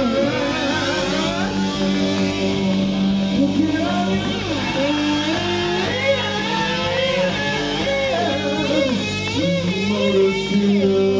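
Live rock band playing loudly, with an electric guitar lead of bending, wavering notes over steady bass and drums.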